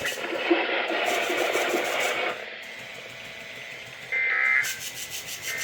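A rough hiss for about two seconds, then short raspy two-tone data bursts from a weather radio. These are the SAME end-of-message tones that close a Required Weekly Test. One burst comes about four seconds in, and the next begins right at the end, about a second apart.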